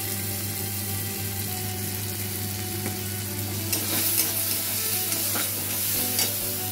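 Onion, tomato and spice masala sizzling as they fry in a kadhai, stirred with a metal spatula that scrapes against the pan a few times in the second half.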